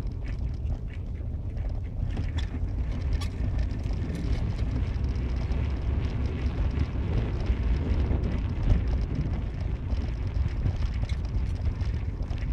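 Car driving: a steady low rumble of engine and road noise, with wind noise over it and a few faint ticks.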